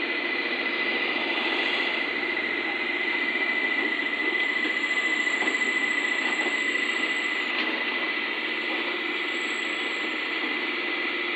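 SDLG 690F crawler excavator's diesel engine running steadily with a constant high whine as the machine crawls down off the trailer. A thin, very high squeal comes and goes twice through the middle.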